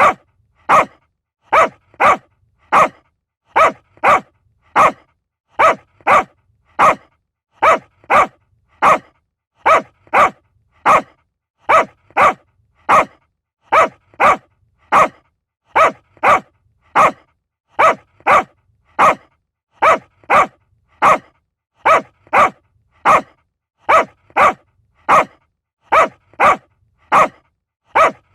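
Small dog barking in a steady, unbroken run of short, sharp single barks, about three every two seconds, with brief silences between.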